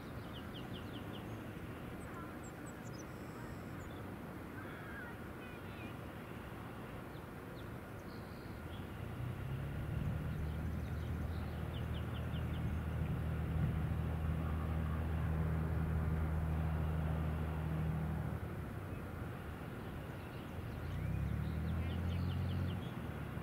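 Cessna U206E Skywagon's six-cylinder piston engine and propeller running at taxi power, the engine note growing louder about a third of the way in and holding for several seconds, then easing and swelling again briefly near the end. Small birds chirp in short trills through it.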